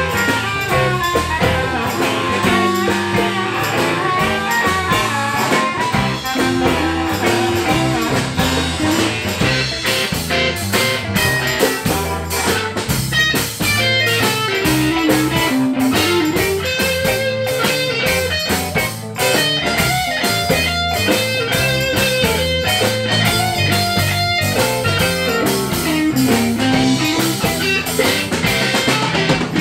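Live blues band playing a shuffle: electric guitars, bass and drum kit, with a lead line of bent notes over the top.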